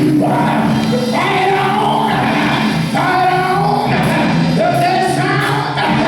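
Gospel singing with instrumental accompaniment: sustained, held sung notes over a steady band backing.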